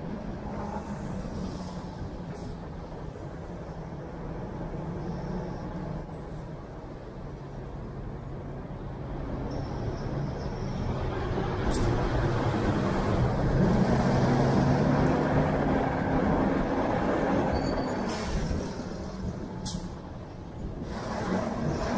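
Car driving on city streets: steady engine hum and tyre and road noise. It grows louder and climbs in pitch through the middle as the car speeds up, then eases off near the end.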